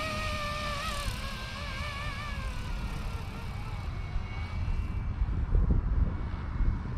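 Fly Wing FW450 electric RC helicopter in flight, its motor and rotor whine wavering in pitch and fading away over the first three seconds. A low rumble runs underneath and swells about five and a half seconds in.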